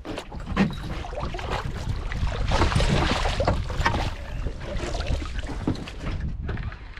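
Wind and water noise aboard a small open boat, with irregular knocks and splashes. It grows loudest about halfway through.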